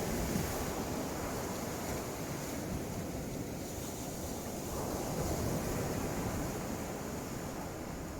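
Sea waves washing onto the beach, a steady rush that swells a little past the middle, with wind buffeting the microphone.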